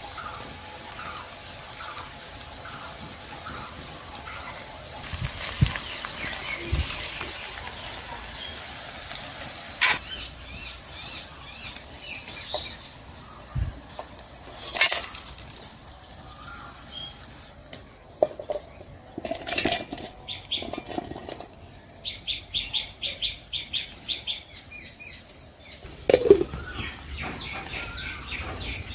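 Oil sizzling under onions frying in an iron kadai, then scattered clinks and knocks of pots, bowls and utensils. Birds call now and then, with a quick run of short chirps about three quarters of the way through.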